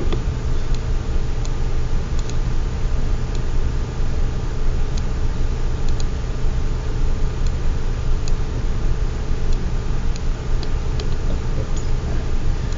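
Scattered single computer mouse clicks, about one every second or so, over a steady low hum and hiss.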